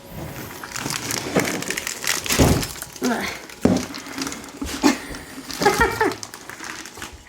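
Thin plastic shrink-wrap crinkling and crackling as it is cut and pulled off a whole raw chicken, a dense run of sharp crackles and snaps.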